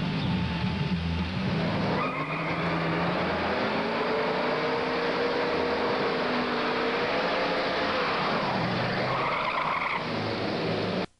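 Convertible muscle car doing a burnout: the engine is revved hard and held high while the rear tires spin and squeal, over a dense hiss of tire noise. The sound cuts off abruptly just before the end.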